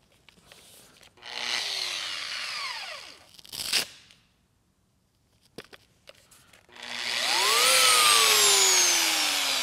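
Small handheld polisher, fitted with a fresh white foam pad, run briefly and left to spin down. A sharp click follows, then the polisher is run again: its pitch climbs quickly, then sinks slowly as the motor slows.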